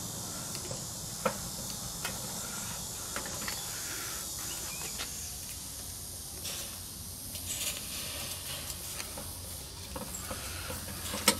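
Light metal clicks and taps as wire-mesh roasting baskets are seated onto the mounts of an auto-rotating charcoal grill, over a steady low hiss. One sharp click comes near the end.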